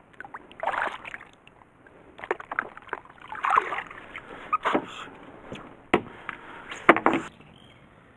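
Water splashing and sloshing as a hand lowers a caught largemouth bass into the water and lets it go, with a few sharp knocks near the end.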